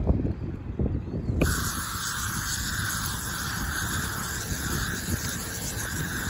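Pioneer aerosol field-marking paint can spraying a line: a steady hiss that starts suddenly about a second in, over wind rumble on the microphone.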